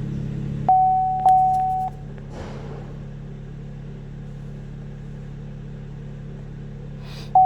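Electronic beep tones: a low steady hum cuts off abruptly under a second in, giving way to one held beep lasting about a second. A short whoosh follows, then a faint steady hum, and a run of short repeated beeps on the same pitch begins near the end.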